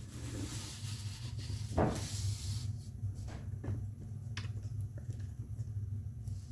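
Large sheets of drawing paper rustling and sliding over a wooden workbench as they are shuffled, loudest about two seconds in. After that come a few light taps, over a steady low hum.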